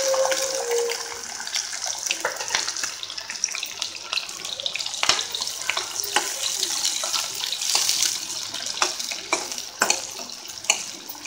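Chopped onions sizzling in hot oil in a steel kadai with green chillies, mustard seeds and cumin, with frequent sharp crackles. The sizzle is loudest at the start, as the onions hit the oil, and eases off.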